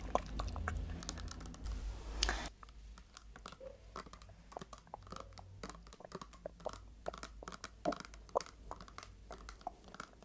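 Many quick, irregular light taps and clicks close to the microphone. A low rumble under them stops about two and a half seconds in.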